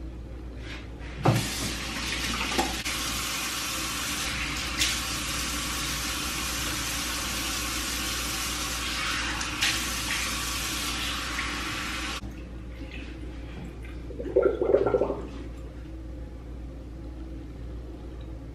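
Bathroom sink tap running with water splashing as a face is rinsed off, starting with a click and cutting off suddenly after about eleven seconds. A brief louder burst follows near the end.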